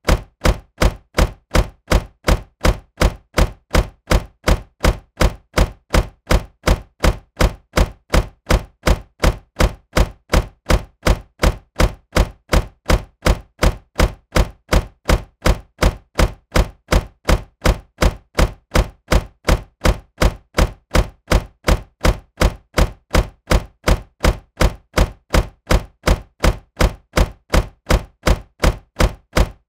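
Car door shutting with a thunk, the same short slam repeated over and over at an even pace of about two to three a second.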